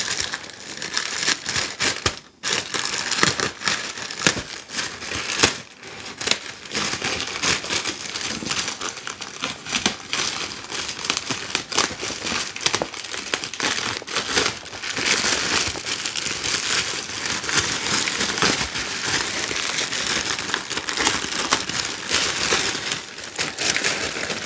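Plastic poly mailer crinkling and rustling as it is torn open by hand and a plastic-wrapped package is pulled out of it, with many sharp crackles throughout.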